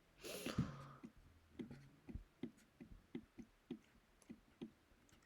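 Pen or stylus writing, heard as a soft rustle in the first second and then a string of light, irregular taps and strokes, about two or three a second.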